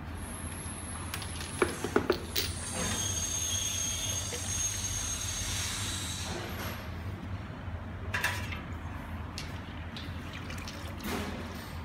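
Liquid poured into the plastic hopper bucket of a desktop filling machine, running for about four seconds. It follows a few sharp knocks of the bucket being handled about two seconds in, which are the loudest sounds. Lighter knocks come near the end, over a steady low hum.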